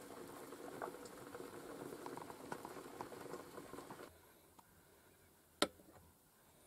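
A pot of potatoes boiling on a portable gas stove: faint bubbling with small pops. It stops about four seconds in, and a single sharp click comes near the end.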